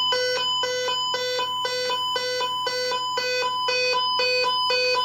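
Weather alert radio's built-in alarm beeping about three times a second, set off by the broadcast's coded alert header for a required weekly test.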